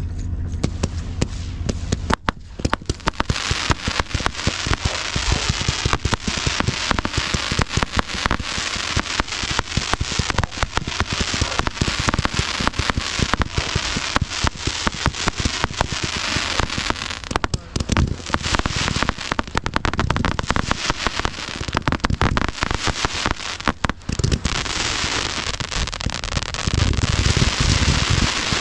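Fireworks going off in a dense, continuous barrage of sharp crackling reports, with deeper booms mixed in, heaviest near the end. A low steady rumble comes before the bangs start, about two seconds in.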